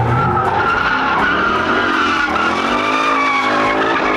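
Drift car's engine revving hard with its tyres squealing through a slide; the engine pitch dips and climbs again about halfway through.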